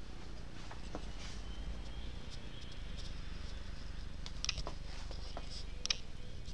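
Steady low room rumble with faint scattered clicks and rustles, two of them sharper in the second half.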